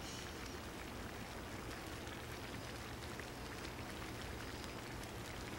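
A pot of jambalaya simmering on the stove: a steady, soft bubbling with faint crackles.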